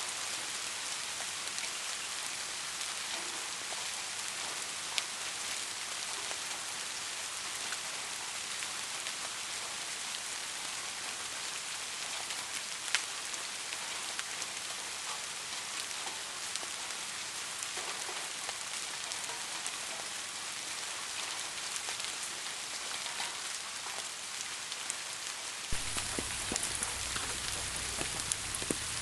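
Steady rainfall hissing, with an occasional louder drop ticking. Near the end a low rumble joins and the drips come thicker.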